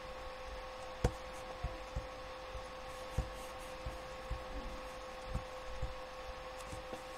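Steady electrical hum with a constant mid-pitched tone, broken by a few soft low thumps and a sharp click about a second in.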